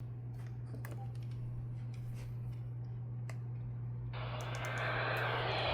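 Low steady electrical hum with a few faint clicks, then about four seconds in a weather radio receiver's static hiss cuts in suddenly and grows louder.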